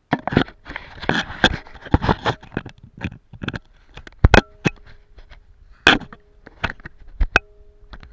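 Camera handling noise: a quick run of loud knocks, clicks and scrapes right at the microphone as the camera is grabbed off the floor and moved about, busiest in the first two seconds and then coming in separate knocks.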